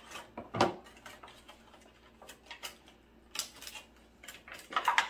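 Hard plastic packaging and plastic bags being handled: a few light clicks and knocks with some rustling, the sharpest click about half a second in and a quick cluster of clicks around three and a half seconds.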